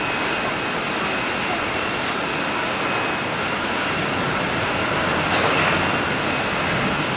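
Boeing 737-800's twin CFM56-7B turbofan engines at takeoff thrust during the takeoff roll and rotation: a steady rush of jet noise that swells slightly about five seconds in.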